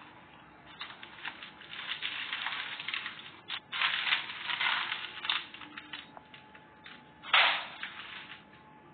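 Dry debris crunching and crackling in irregular bursts, with the loudest crunch about seven seconds in.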